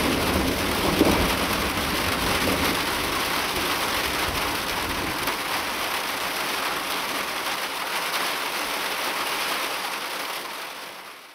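Rain falling steadily in a thunderstorm, an even dense hiss. A low thunder rumble dies away in the first second or so. The sound fades out near the end.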